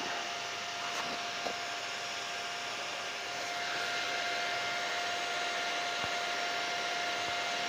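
WERT MMA 220 welding inverter at work: a steady high whine over a continuous hiss, with a few faint crackles, the hiss growing a little louder about three and a half seconds in.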